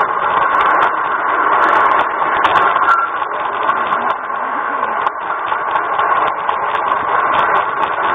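LGB garden-railway locomotive running, heard from on board the train: a steady whirr of its electric motor and gearing, with small clicks from the wheels on the track.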